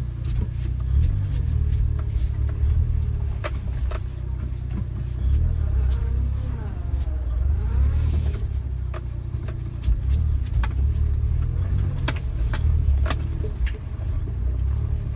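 Suzuki Jimny driving over a rough track: a steady low rumble with the engine note rising and falling, and scattered knocks and rattles throughout.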